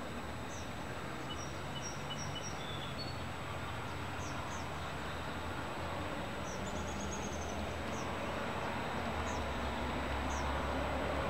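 Songbirds calling with short high chirps and one brief trill, over a steady low rumble that grows a little louder near the end.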